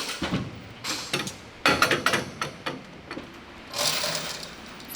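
Ratchet spanner clicking, with short metal knocks and clatter from work on the steel deck panels of a BMP-1 armoured personnel carrier. There is a quick run of clicks a little before the middle and another burst near the end.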